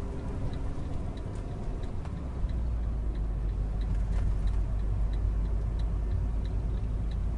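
Windblown sand striking the car, heard from inside the cabin over the car's low, steady road and engine rumble. Through it a hazard-light flasher ticks evenly, about three ticks every two seconds.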